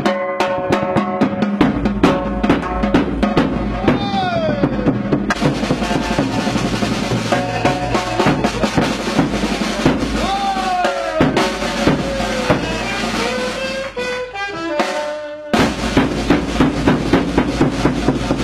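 Background music driven by drums, with a fast, steady beat and melodic lines over it; it breaks off briefly about three-quarters of the way through before the beat comes back.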